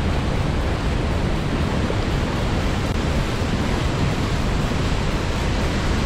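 Rushing water: a steady, even noise with no rise and fall and no music over it.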